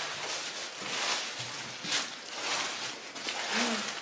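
Footsteps crunching and rustling through a thick layer of dry dead leaves.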